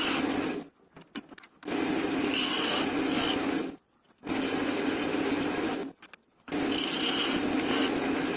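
A tool working wood in runs of about two seconds each, with short pauses between, four times.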